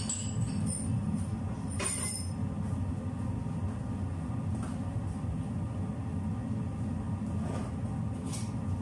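Kitchen range hood fan running with a steady low rumble, with a few faint clinks of kitchenware.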